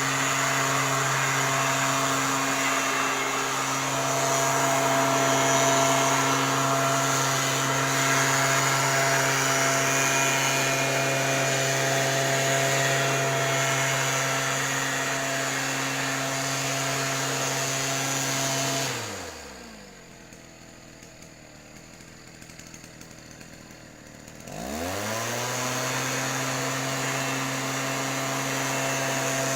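STIHL backpack sprayer's engine running steadily at full throttle. About two-thirds of the way in, it is throttled back and the pitch sinks to a low idle for about five seconds. It then revs back up to full speed.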